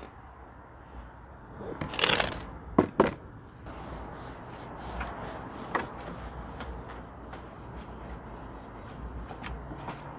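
A microfiber cloth rubbing over the inside of a car's raised trunk lid: a soft, uneven rubbing with small ticks. About two seconds in comes a louder clatter, then two sharp clicks.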